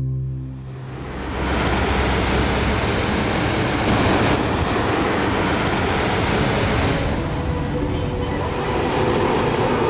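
Hot-air balloon propane burner firing: a loud, steady rushing noise of flame that starts about a second in and holds without a break.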